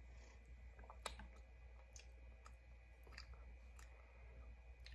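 Near silence with a handful of faint, scattered mouth clicks from sipping an iced drink through a straw.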